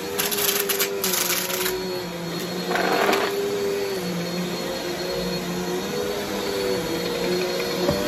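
Upright vacuum cleaner running on carpet, a steady motor hum whose pitch dips and recovers as it is pushed and pulled. Debris rattles up through it for the first second and a half or so, with another short burst around three seconds in.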